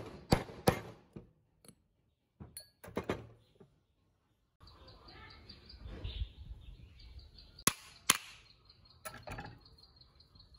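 Sharp metal knocks as a ball bearing is driven onto the shaft of an electric planer's steel cutter drum with a pipe, the drum standing on a wooden bench; three knocks come in the first second. Lighter metal clicks and clinks follow as the drum with its fitted bearings is handled, and a faint, fast, even chirping runs in the background from about halfway.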